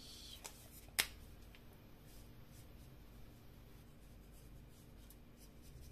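Marker cap pulled off with a sharp click about a second in, then the felt tip of a double-ended marker stroking faintly on paper.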